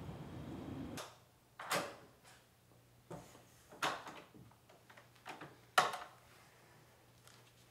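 A low rumbling background stops about a second in. In a quiet room with a faint steady hum, a door is opened and handled: a string of sharp clicks and knocks, the loudest near six seconds in.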